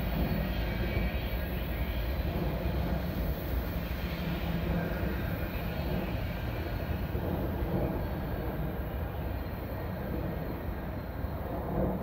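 Loaded BNSF coal train rolling past: a steady rumble of the cars on the rails, easing slightly near the end.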